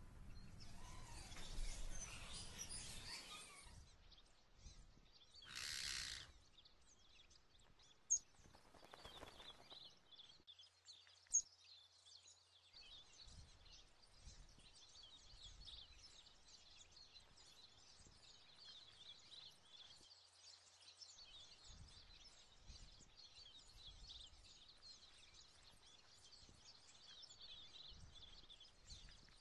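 Near silence: faint shop room tone, with a brief rustle and two sharp clicks in the first half.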